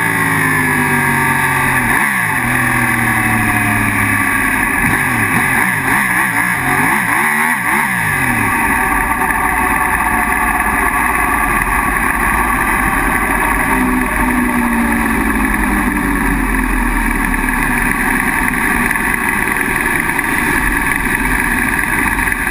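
Sport motorcycle engine heard from an onboard camera: the revs fall several times as the bike slows and changes down over the first eight seconds, then the engine runs steadily at low revs as the bike rolls slowly into the pit lane, under a steady rush of wind noise.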